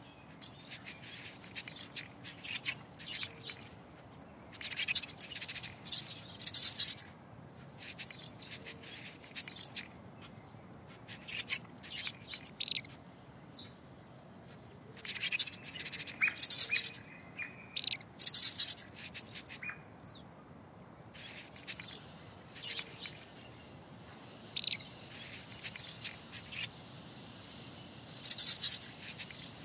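Rapid, high-pitched squeaks and chirps of a small animal, in quick clusters a second or so long with short gaps between them.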